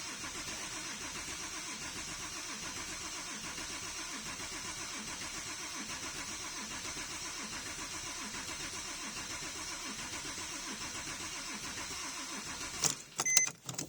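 Porsche 997.2's flat-six engine being cranked by the starter with a steady, even rhythm, turning over without catching, then stopping about 13 seconds in, followed by a few sharp clicks. It is a crank-no-start: fuel pressure builds and compression sounds good, and the mechanic puts the failure to fire down to fouled spark plugs.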